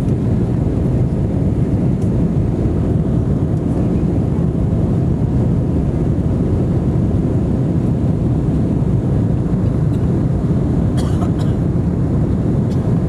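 Steady low roar of an airliner's engines and rushing air, heard inside the passenger cabin during the climb after takeoff.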